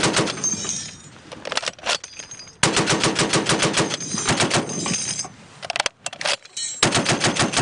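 M2 Browning .50 caliber heavy machine gun firing in bursts at about eight rounds a second. A short burst comes at the start and a few shots about two seconds in. A long burst of roughly three seconds follows, and another burst starts near the end.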